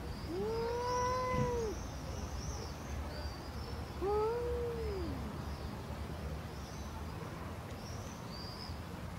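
Domestic cat giving two long, drawn-out yowls about four seconds apart, each rising and then falling in pitch: a hostile caterwaul at another cat over food.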